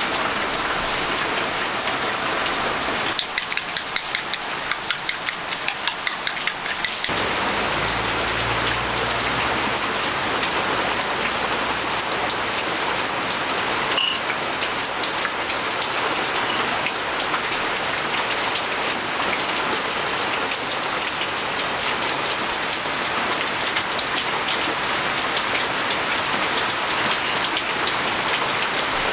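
Steady rain falling in an even hiss, with a stretch of light, regular ticks at about three a second between about three and seven seconds in.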